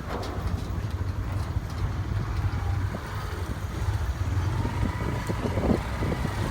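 A road vehicle on the move: a steady, low engine rumble with road noise.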